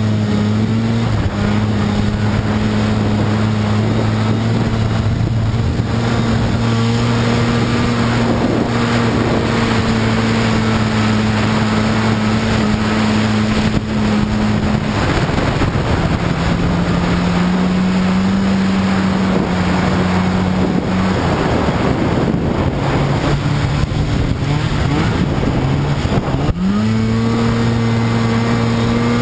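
Snowmobile engine running under way through snow, holding a steady pitch for the first half, easing off to lower pitches in the middle, then revving back up sharply near the end.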